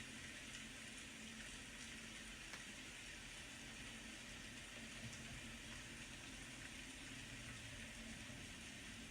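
Steady rain: a soft, even hiss with faint patter, over a faint low hum.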